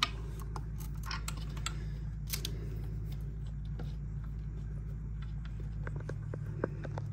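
Cables being pushed and pulled through a hole in an e-bike's metal frame: scattered small clicks, scrapes and rustles over a steady low hum.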